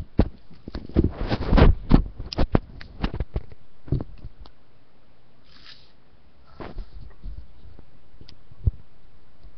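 Close handling noise: a quick run of rustles, bumps and clicks for the first four seconds or so, then two short breathy hisses and a single sharp click near the end.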